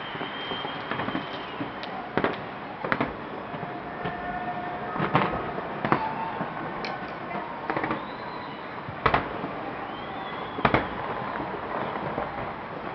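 Fireworks going off across a city: about six sharp bangs, spaced irregularly over a steady crackle, with a few high whistles that hold or glide in pitch.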